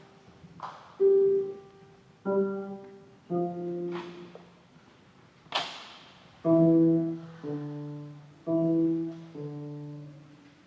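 Acoustic piano played slowly by a beginner: single notes, then two-handed chords, struck one at a time about a second apart and left to ring. A few short clicks fall between the notes.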